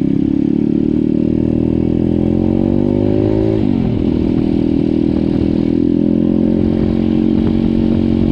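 Pit bike's single-cylinder four-stroke engine pulling under way while a new engine is run in. The revs climb for about three and a half seconds, drop sharply, then settle to a steady pace.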